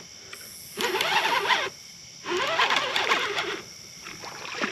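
Conventional fishing reel being cranked to bring in a hooked fish: two stretches of whirring gear noise, each about a second long, the first starting about a second in, with a pitch that wavers with the speed of the handle and a short pause between.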